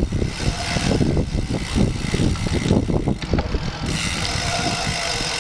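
Wind buffeting the microphone of a camera riding along on a moving bicycle: a dense, gusty rumble that settles into a steadier hiss about four seconds in.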